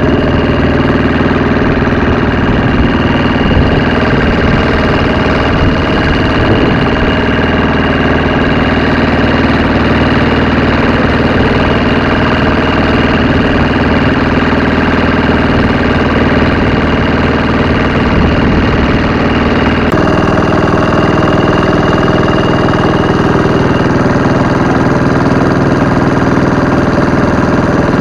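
Wooden boat's engine running steadily under way, a constant drone with a steady pitch; its tone shifts abruptly about twenty seconds in.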